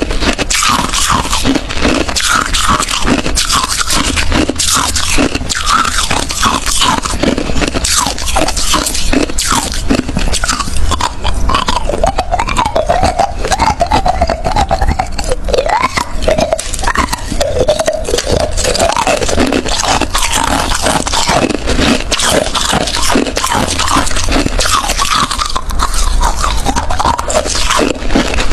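Close-miked crunching of hard ice being bitten and chewed, a dense, continuous run of sharp crunches.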